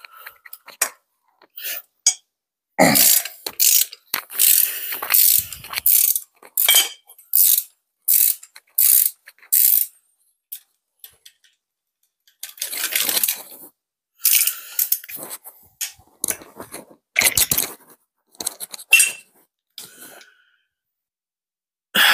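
Socket ratchet clicking in short quick runs as nuts are worked off the exhaust manifold studs, with light metal clinks; it stops for a couple of seconds midway.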